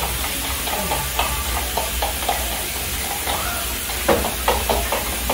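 A utensil whisking eggs and milk in a plastic measuring cup: a run of quick, irregular taps and scrapes against the cup, heavier about four seconds in. A steady hiss runs behind it.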